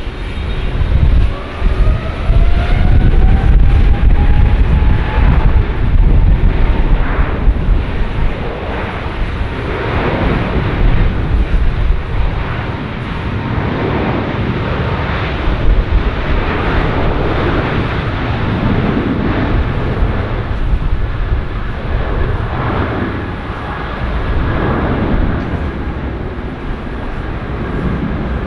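Boeing 777-300ER's GE90 jet engines spooling up to takeoff thrust, with a rising whine over the first few seconds, then a loud rumble that swells and ebbs as the jet rolls down the runway.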